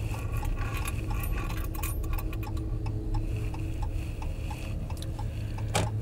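A car's turn-signal indicator ticking steadily over the low hum of the engine and road, with light rattles and jingles in the cabin as the car turns.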